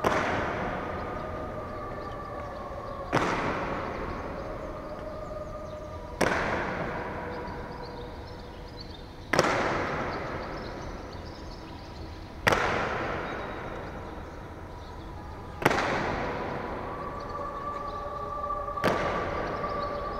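Honor guard's slow ceremonial march in a large echoing hall: heavy boot stamps about every three seconds, each ringing on for a long time, over soft sustained music.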